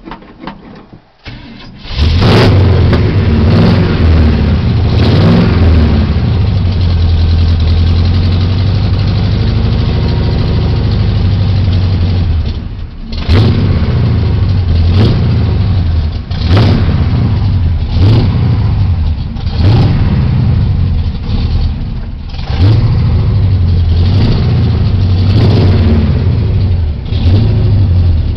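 A pickup truck's V8 with true dual Flowtech headers and Flowtech Red Hot glasspacks starts up about two seconds in and runs loud and aggressive, blipped on the throttle again and again. It is held on the gas to keep it running because its carburetor is failing.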